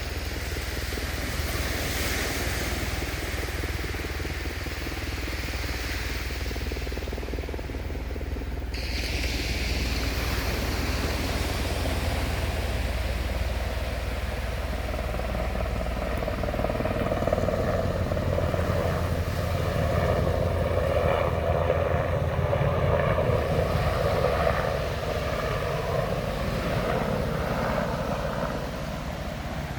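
Sea surf washing on a beach with wind rumbling on the microphone. From about twelve seconds in, the steady hum of an engine passing nearby swells, is loudest a little past the middle, and fades toward the end.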